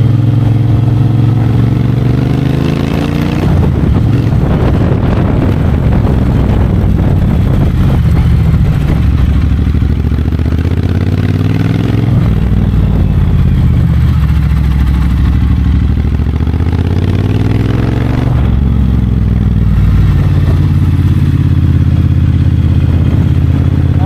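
Triumph Bonneville Bobber's 1200 cc parallel-twin engine running under way, pulling up through the revs: the pitch climbs, drops suddenly at each gear change and climbs again, three times, then holds steadier near the end.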